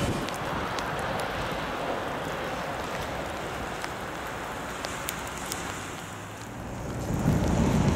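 Steady hiss of wind and drizzle beside the track, with a few faint ticks. About seven seconds in, the low rumble of an approaching train begins to swell.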